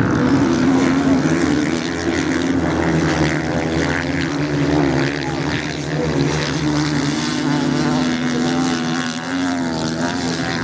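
Several off-road motorcycles' engines running together as the bikes race through a corner, their pitches rising and falling as the riders work the throttles.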